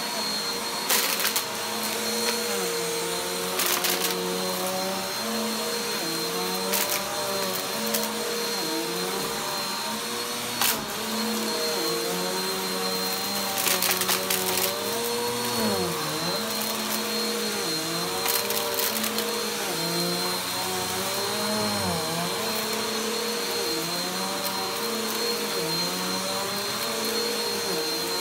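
Bagless upright vacuum cleaner running over carpet, its motor hum dipping in pitch every couple of seconds. Short crackling crunches come several times as bits of debris are sucked up.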